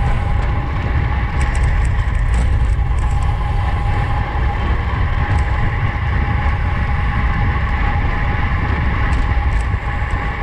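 Steady wind rushing over the microphone of a road bike moving at race speed, with a faint steady whine running under it.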